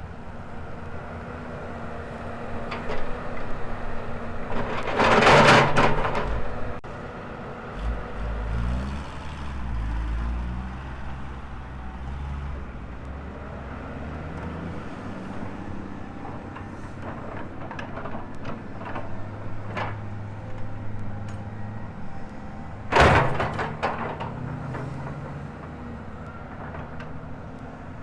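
Volvo excavator's diesel engine running, its pitch and load shifting as the machine works. Two loud rushing bursts cut through, about five seconds in and again some eighteen seconds later.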